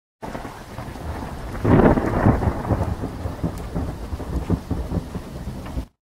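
Thunderstorm: rain falling steadily, with a loud peal of thunder about two seconds in and lesser rumbles after it, cutting off suddenly just before the end.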